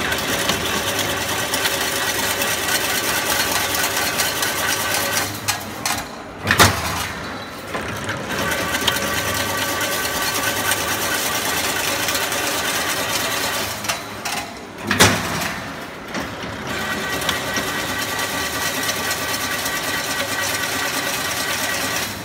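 LW 25/80 fully automatic chain link fence machine running, a steady mechanical whirr with a high hum as it twists wire into a spiral. The run breaks off twice, about six and a half and fifteen seconds in, each time with a single sharp clank before the whirr starts again.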